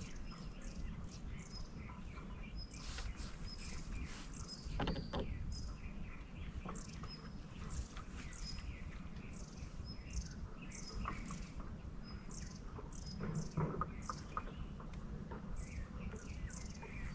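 Wild birds calling around the shoreline, with many short high chirps and a repeated brief note, over a steady low rumble.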